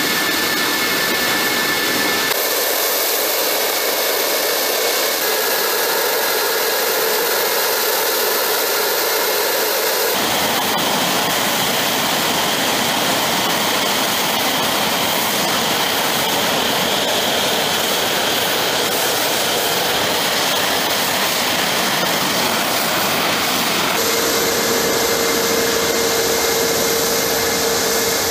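Sukhoi Su-57 fighter's twin AL-41F1 turbofan engines running on the ground, a steady loud jet noise with a high whine. The whine's pitch and the low end change abruptly a few times, about 2, 5, 10 and 24 seconds in.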